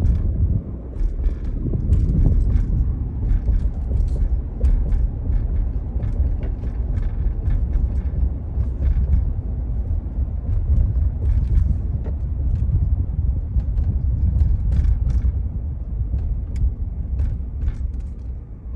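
A car driving slowly, with a steady low rumble from the engine and tyres and many light scattered clicks and ticks over it.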